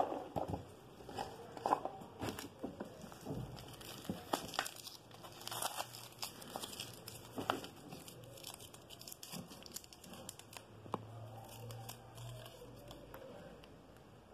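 Packaging handled by hand: irregular rustling and crinkling with many small clicks and taps, loudest at the very start.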